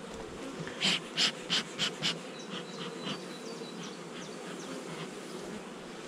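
Honeybees humming steadily around an open hive. About a second in, the bellows of a bee smoker give a quick run of five hissing puffs.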